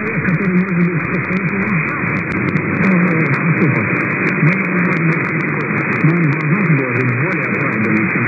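Weak shortwave broadcast of Adventist World Radio on 9460 kHz, heard through an SDR receiver: a voice speaking in Russian, faint under a steady hiss. The audio is narrow and muffled, with a fast crackle of interference clicks over it.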